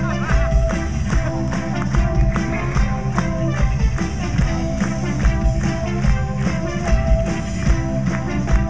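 Live rock band playing amplified electric guitars, keyboard and drum kit with a steady beat.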